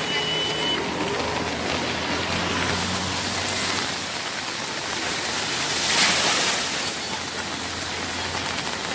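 Heavy rain pouring down on a flooded street, a dense steady hiss with a low engine hum beneath it. The rush swells briefly about six seconds in.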